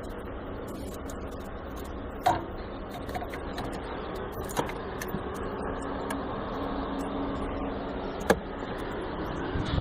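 Steady workshop background hum with a few sharp clicks of hand tools on the van's engine parts, spaced a couple of seconds apart.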